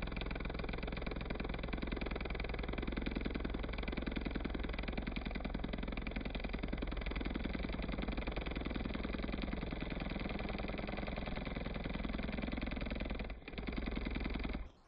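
Engine sound effect: a motor running steadily at an idle-like pace with a fast, even pulse. It breaks off briefly near the end, resumes, then cuts off suddenly, with a dull, top-less tone.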